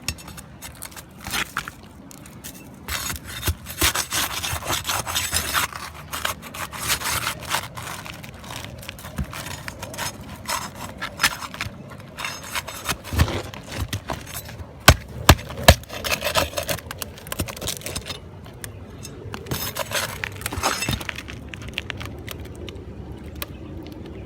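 Old roofing shingles being pried and torn up by hand: repeated scraping and crackling with many sharp clicks and knocks, and a few loud sharp hits about halfway through.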